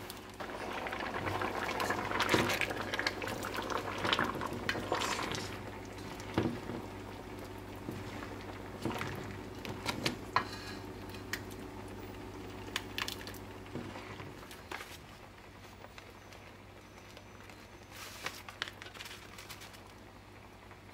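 Curried chickpeas and potatoes simmering in a metal pot while a silicone spatula stirs through them, with liquid sloshing and the spatula now and then knocking and scraping against the pot. The stirring is loudest in the first few seconds, and a steady low hum runs underneath.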